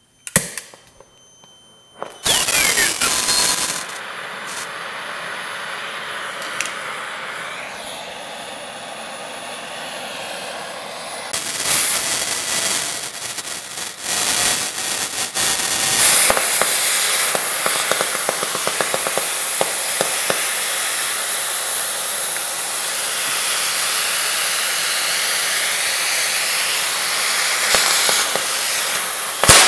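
Victor DC2400 pattern-tracing oxy-fuel cutting torch lit with a loud pop about two seconds in, then hissing steadily as its flame preheats 5/8-inch steel plate. Partway through the hiss grows louder and turns crackly as the cutting oxygen cuts into the plate, with a sharp pop near the end.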